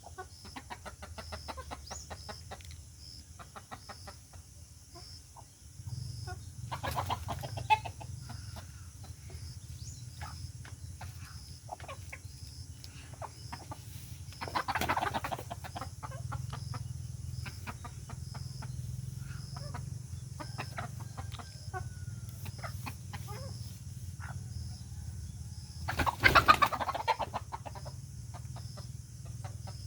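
Chicken clucking in short repeated calls, with three louder outbursts of calling about 7, 15 and 26 seconds in. A low steady hum runs underneath.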